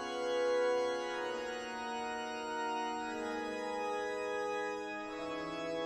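Song intro played on a sustained organ, holding chords that change every second or so, with no singing.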